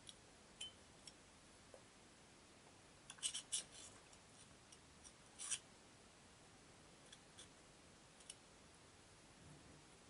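Faint, sparse clicks and ticks of a lock cylinder's small parts being handled: a quick cluster about three seconds in and a sharper click about five and a half seconds in, otherwise near silence.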